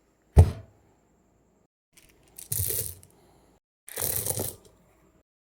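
A .30 bore pistol being handled: one sharp, loud metallic snap, then two rattling, scraping mechanical strokes about a second and a half apart.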